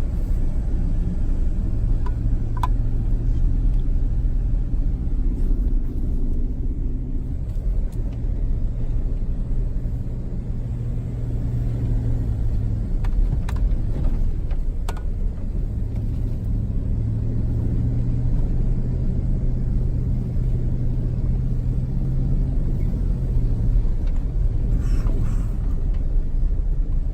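A vehicle driving on snow-covered roads: a steady engine hum over low road rumble, the engine note fading for a few seconds about halfway through and then coming back.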